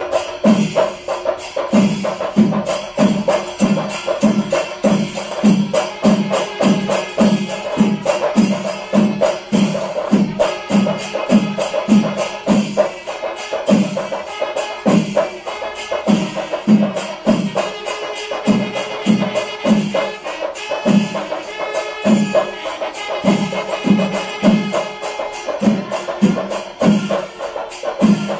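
Kerala temple percussion ensemble playing: a steady beat of deep drum strokes under continuous clashing of ilathalam hand cymbals, with held pitched tones above. The beat loosens a little about halfway through.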